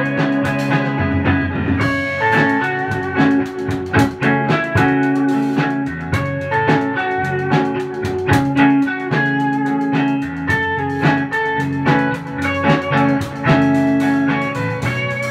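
Electric guitar, a Fender Stratocaster through a Fender Princeton Reverb amp, jamming with a drum kit: sustained guitar notes over steady drum hits.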